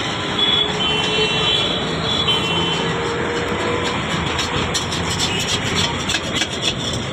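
Steady city street traffic noise, with a run of short clicks and rattles in the second half.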